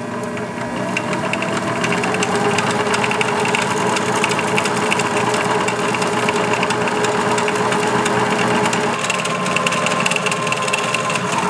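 Berkley electric line-spooling machine running, spinning a fly reel spool as backing line winds onto it. Its motor hum rises a little in pitch over the first couple of seconds as it comes up to speed, holds steady, and stops abruptly at the very end.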